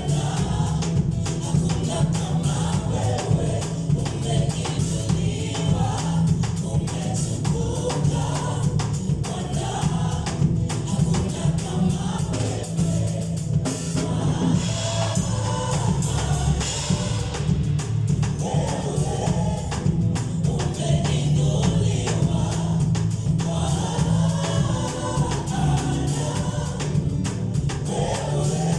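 Gospel worship song sung by a choir and congregation, with tambourine and a drum kit keeping a steady beat over a heavy bass line.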